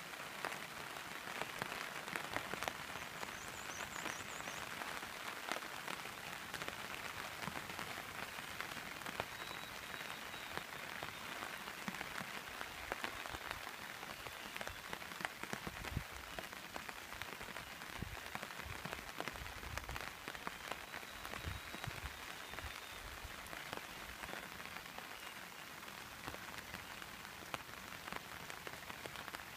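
Steady rain falling on muddy floodwater: an even hiss dotted with many small drop ticks. A few low rumbles come and go about halfway through.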